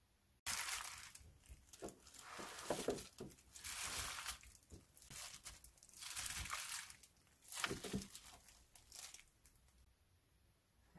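A plastic-gloved hand scooping chilli-coated radish cubes out of a pan and into a plastic container: crinkling of the glove and the cubes shifting and dropping. It starts suddenly about half a second in and comes in several rustling bursts with short pauses, then dies away near the end.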